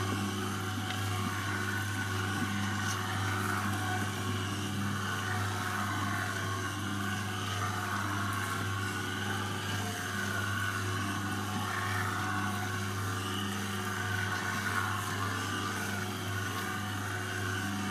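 Boilie dough mixer running steadily: a low hum as its spinning shaft with six arms churns the dough around the pot.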